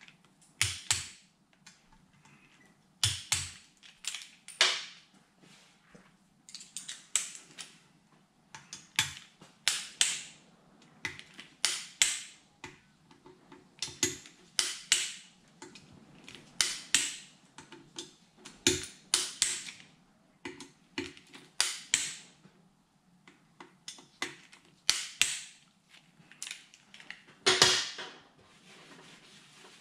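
Torque wrench ratcheting and clicking as engine crankcase screws are tightened to 10 newton metres, the click marking each screw reaching its set torque. Short clusters of sharp clicks come every second or two, with a louder knock near the end.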